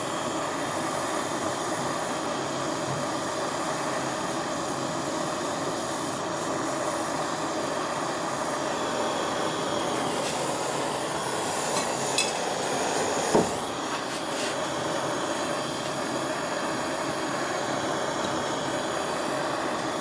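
Gas soldering torch flame hissing steadily while it heats a large silver piece toward solder flow. A couple of sharp clicks, likely from tools or metal, come about two-thirds of the way through.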